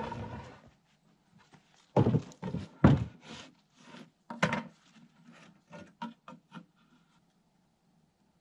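Irregular wooden knocks and thuds, with a short scraping rub at the start. The heaviest knocks come about two and three seconds in, followed by a run of lighter knocks that stop about seven seconds in.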